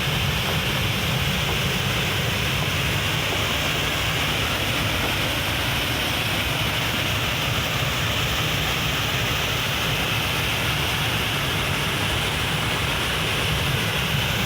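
Steady rush of a waterfall, an even roar of falling water that does not change.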